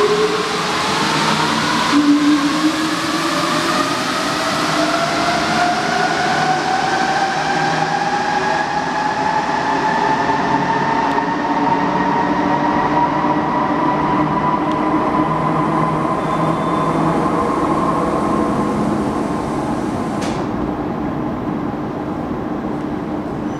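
Alstom NS-16 metro train accelerating away from the platform, its traction motors whining in several tones that rise in pitch over the first ten seconds and then level off, over steady wheel and running noise that slowly fades as it goes into the tunnel. One sharp click near the end.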